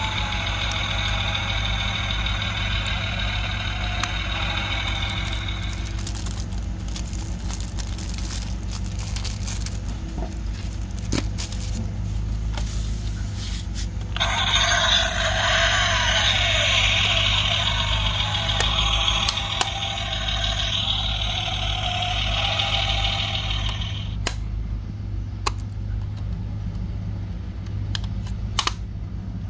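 Engine sound effect from the small built-in speaker of a 1/24-scale diecast Toyota Land Cruiser LC300 model, heard in two stretches: through the first six seconds or so, and again from about fourteen to twenty-four seconds, over a steady low hum. A few sharp clicks near the end as the model's doors are handled.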